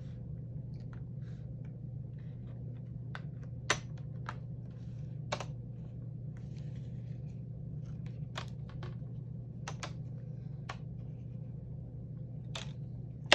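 Plastic display bezel of a Dell Latitude E6400 laptop being pried off by hand: scattered, irregular sharp clicks and snaps as its clips let go, over a steady low hum.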